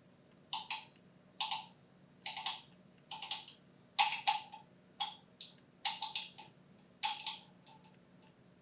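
The brass grind-adjustment wheel under the burr of a Comandante C60 Baracuda hand coffee grinder is turned by hand. It clicks through its settings in short bursts of a few clicks, about once a second.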